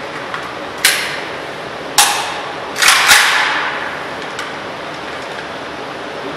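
Four suppressed rifle shots from an AK fitted with a quick-detachable suppressor, firing supersonic ammunition: one about a second in, another a second later, then two in quick succession, each with a short fading tail, over a steady background hiss.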